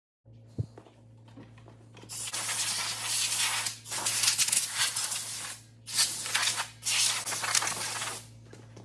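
Compressed-air blow gun blasting steel-wool dust off scuffed plastic mirror caps before primer: four loud bursts of hiss with short gaps between, starting about two seconds in, over a steady low hum.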